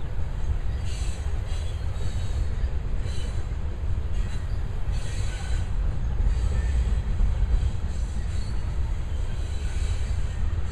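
Loaded coal cars of a freight train rolling past: a steady low rumble of steel wheels on rail, with higher-pitched wheel noise rising and fading every second or two.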